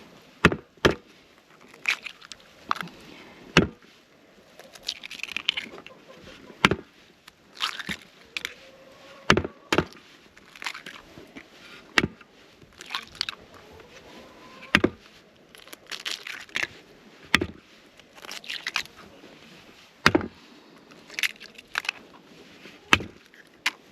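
Chickens pecking at cracked raw eggs and their shells: irregular sharp taps and crunches, a few to several every couple of seconds.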